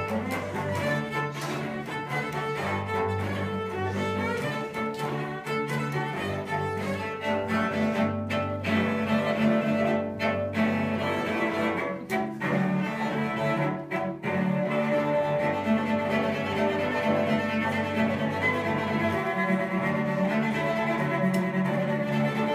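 Cello being bowed, playing a slow line of held low notes, with a few short breaks between phrases.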